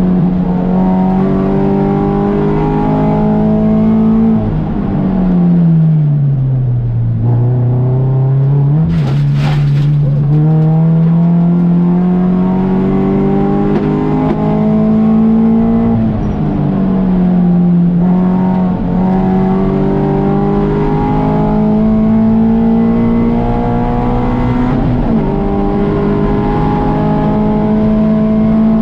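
Race car engine under load, its pitch climbing steadily through the gears, with sudden drops at two upshifts, one about halfway through and one near the end. About five seconds in, the revs fall away over a couple of seconds, as when braking for a corner, and a brief sharp noise follows a few seconds later.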